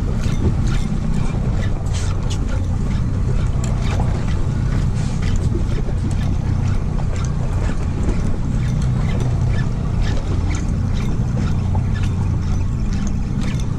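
Boat engine idling, a steady low hum, with wind on the microphone and scattered sharp ticks throughout.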